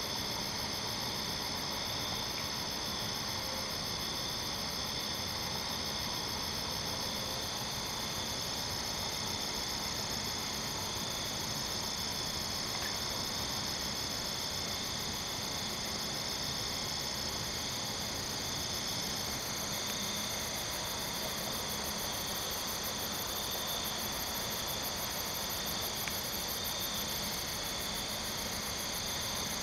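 Steady chorus of night-singing crickets and katydids: several constant high trills layered together, one of them a fast, even pulsing buzz above the rest.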